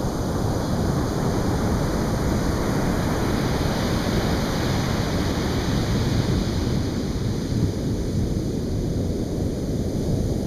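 Atlantic surf breaking and washing on the beach, a continuous low rush of water with a slow swell and ebb, with wind buffeting the microphone.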